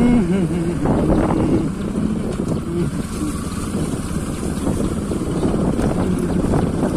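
Wind buffeting the microphone on a moving motorcycle, over the steady running of a Bajaj Pulsar NS200's single-cylinder engine.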